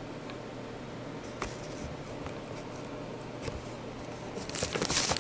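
Steady background hiss with a couple of faint handling clicks, then about a second of loud crinkling of plastic packaging near the end as the gift box is handled.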